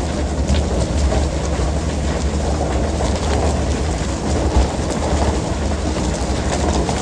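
Steady low rumble of a fishing boat's engine under way, mixed with water rushing and splashing along the hull.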